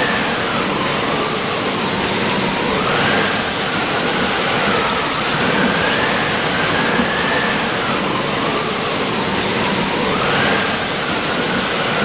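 Steady heavy rain. Over it, a thin high tone wavers up and down every few seconds.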